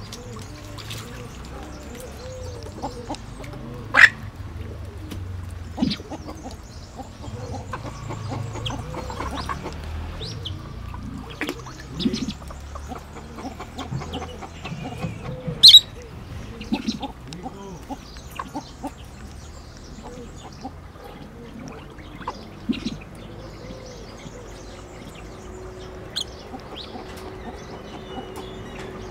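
Birds calling in a waterfowl collection: a busy mix of short clucking calls and chirps, with two sharp, loud chirps about 4 seconds and 16 seconds in.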